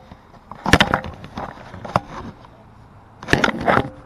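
Plastic handling noise from a toy foam-dart blaster held close to the microphone: a sharp click, then a few lighter knocks, and a louder rattling scrape near the end.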